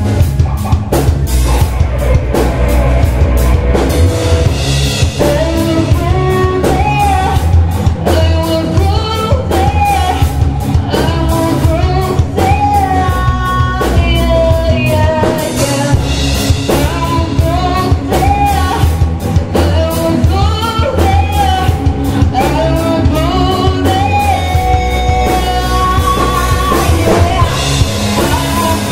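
Live rock band playing: drum kit, electric guitars and bass, with a female voice coming in singing a few seconds in.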